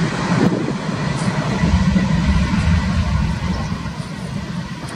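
Boeing 767's twin Pratt & Whitney PW4060 turbofans at takeoff thrust on the takeoff roll: a steady deep rumble under broad jet noise, easing slightly in the second half as the aircraft moves away.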